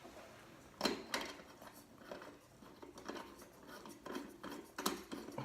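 Faint, scattered clicks and light scrapes of small objects being handled on a table, with a cluster about a second in and another near the end.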